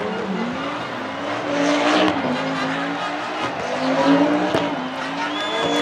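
Audi Quattro Group 4 rally car's turbocharged five-cylinder engine revving up and down again and again as the car spins donuts, with its rear tyres spinning and squealing in the smoke.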